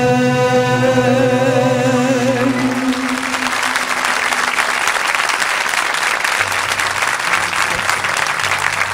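A singer holds the song's final note over a low sustained accompaniment. It ends about two and a half seconds in, and then an audience applauds.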